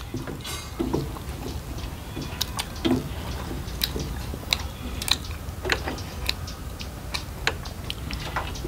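A person chewing and biting food, with sharp, crisp crunches at irregular moments about once a second.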